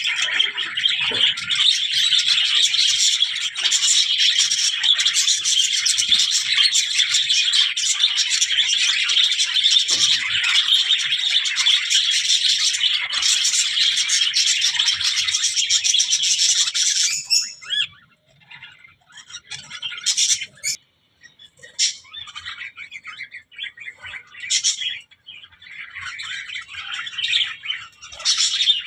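Budgerigars chattering in a dense, continuous stream of high-pitched calls; about seventeen seconds in it thins out to scattered short chirps with pauses between them.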